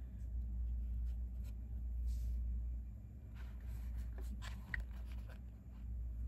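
Faint clicks and scratches of small hard resin-printed parts being handled and pressed into place, bunched in the second half, over a steady low room hum.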